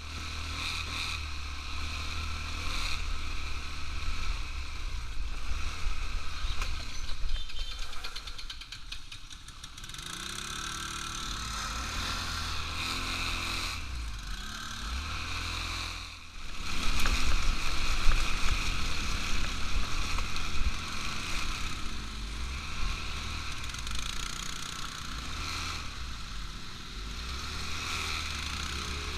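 ATV engine running under way, with its pitch rising and falling through the middle as the throttle changes, over steady rumble and rushing noise. There is a brief dip about two-thirds of the way through, then it comes back louder.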